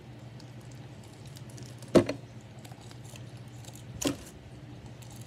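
Slime being stretched and slapped down onto a tray: two sharp slaps about two seconds apart, the first the louder, with faint sticky clicks between them.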